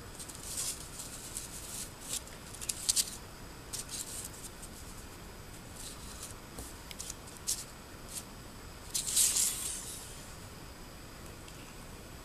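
Paper rustling and crackling as a cut-out paper pop-up sheet is handled and flexed, with scattered small crinkles and a louder rustle about nine seconds in.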